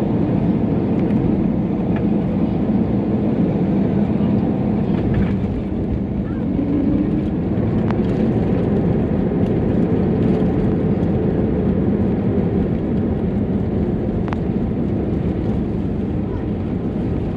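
Airbus A320neo engines and airframe heard from inside the cabin over the wing during the landing rollout, a loud steady roar as the airliner decelerates on the runway with its thrust reversers deployed.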